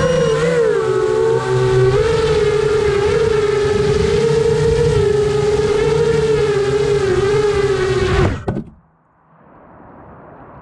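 Brushless motors and propellers of a 7-inch long-range FPV quadcopter whining loudly as heard from the drone itself, the pitch wavering with the throttle. About eight seconds in the whine cuts off suddenly as it lands and the motors stop, leaving a faint hiss.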